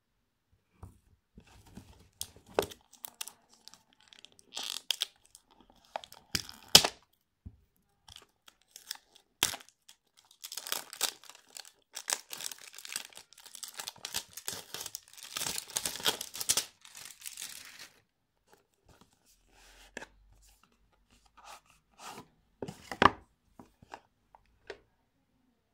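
Clear plastic shrink-wrap being torn and peeled off a cardboard product box, crackling and crinkling, with the longest stretch of crinkling about halfway through. A few sharp taps and clicks near the end as the box is handled.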